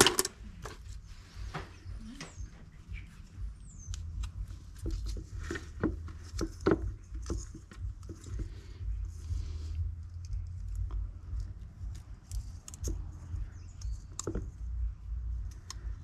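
Fine copper winding wire being pulled and unwound by hand off the plastic bobbin of a microwave turntable motor coil: irregular small clicks, crackles and rustles of wire and plastic, with a sharp click right at the start, over a steady low rumble.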